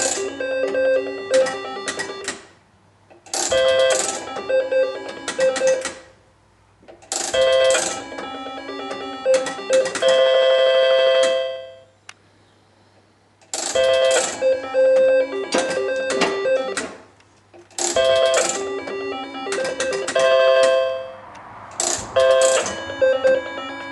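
IGT S-plus slot machine being played spin after spin: each spin opens with a sharp clack, then the machine's quick electronic beeping tune with clicks as the reels stop, repeating every three to four seconds. About ten seconds in, a longer held chime rings for a couple of seconds.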